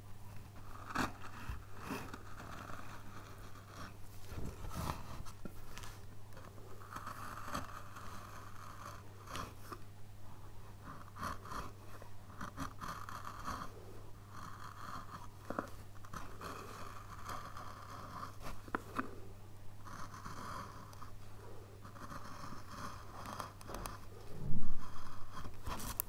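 Hand carving chisel paring a wooden relief panel: a string of short scraping cuts with small clicks as chips come away, one after another with brief pauses. A louder knock comes near the end, under a steady low hum.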